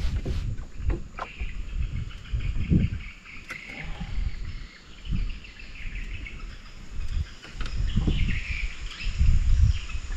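Insects and birds chirping steadily, with irregular dull low thumps and rumbles every second or two that are louder than the chirping.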